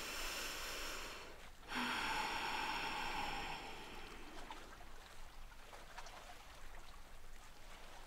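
A person breathing audibly while holding a side plank: two long, hissing breaths, the second starting just under two seconds in, then quieter breathing with a few faint ticks.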